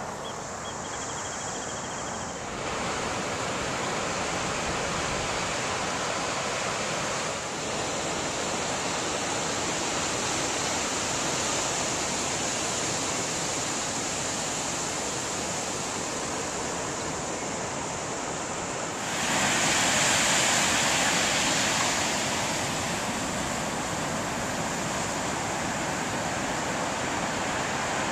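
Ocean surf: a steady rush of breaking waves, swelling louder for a few seconds about two-thirds of the way through.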